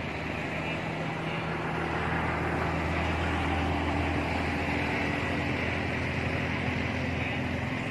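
A steady engine drone with a low hum that shifts slightly in pitch and swells a little toward the middle.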